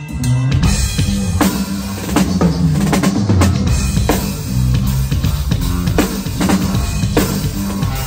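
Drum kit and electric bass guitar playing a jam together. The drums come in about half a second in, joining the bass line with kick, snare and cymbal hits over the bass notes.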